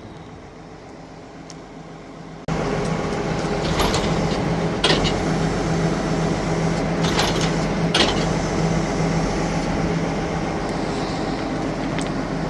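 Tractor engine running a Case IH RB564 round baler at a steady speed, with a pulsing low hum and a few sharp metallic clanks from the baler's moving parts. It is fainter for the first couple of seconds, then cuts in suddenly louder.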